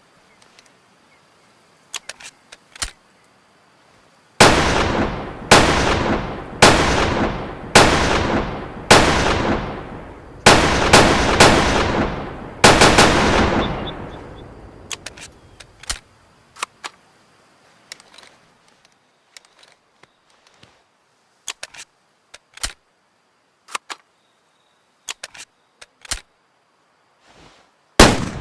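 Ruger .22 rifle firing about nine shots in quick succession, roughly one a second, each ringing out in a fading echo. After the string, only scattered light clicks are heard until another shot right at the end.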